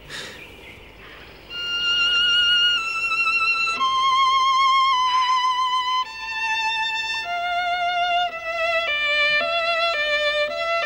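Solo violin playing a slow melody of long held notes with vibrato, starting about a second and a half in; near the end the notes grow shorter and step downward in pitch.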